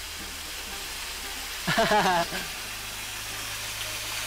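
Steady background hiss, with one short, wavering voice-like call about two seconds in, lasting about half a second.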